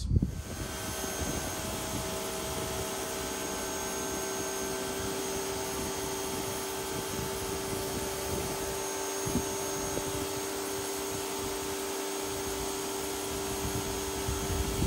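Electric pressure washer running steadily, a motor-and-pump hum with a few held tones, under the even hiss of a 20-inch stainless steel surface cleaner's spinning spray bar blasting concrete. A couple of faint knocks about nine and ten seconds in.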